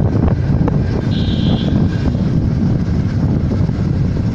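Cargo truck driving at highway speed, heard from inside the cab: a loud, steady low rumble of engine and road noise. A short high-pitched beep sounds about a second in.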